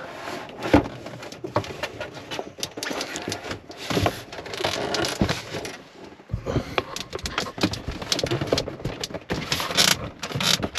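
Irregular scraping, knocking and rustling as a plastic water filter housing is slid into a cabinet corner and pressed against the wall onto Velcro strips.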